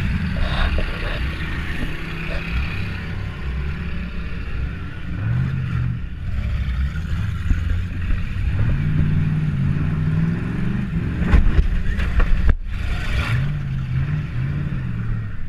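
Demolition derby car's engine, heard from inside the car, revving up and falling back again and again. A few sharp knocks come about eleven to twelve seconds in.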